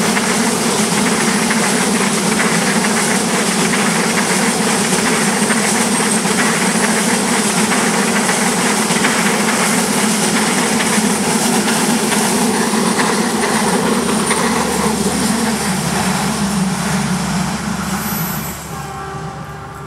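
Passenger train coaches rolling past close by: a steady loud rumble and clatter of steel wheels on the rails, dropping off sharply about eighteen seconds in as the last coach goes by and the train recedes.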